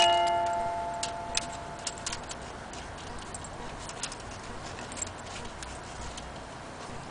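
Antique cuckoo clock ticking, with ringing notes from just before fading out over the first two seconds.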